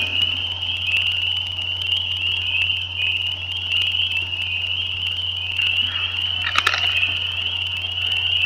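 A dense chorus of frogs calling at night, their calls merging into one continuous high-pitched trill. A low steady hum lies underneath, and a single sharp click comes about two-thirds of the way through.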